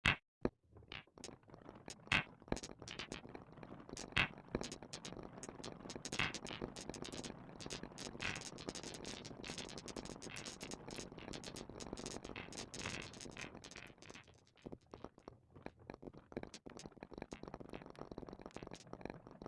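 Marbles rolling and clacking down a marble run: a steady rolling rattle full of sharp clicks, thinning to scattered clicks after about fourteen seconds.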